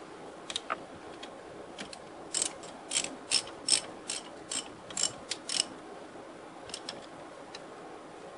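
Hand ratchet wrench clicking as a bolt is tightened: a few scattered clicks, then a run of about ten sharp clicks at roughly three a second, then a couple more near the end.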